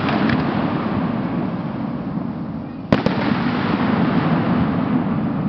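Aerial fireworks display: two sharp bangs close together about three seconds in, over a steady wash of noise from the shells.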